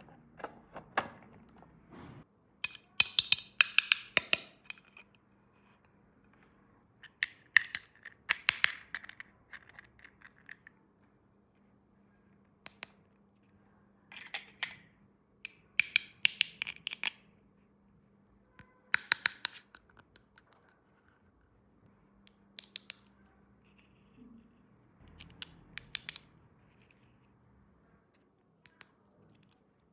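Small plastic toy pieces and packaging being handled, giving clusters of sharp clicks and rattles every few seconds with quiet pauses between.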